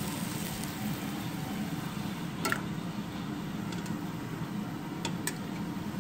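A metal ladle scooping liquid from a stainless stockpot, with one sharp clink against the pot about two and a half seconds in and two lighter clinks near the end, over a steady low kitchen hum.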